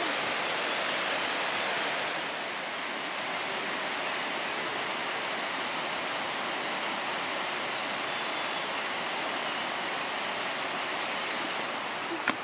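Steady rush of flowing water, even and unbroken, with a short sharp knock near the end.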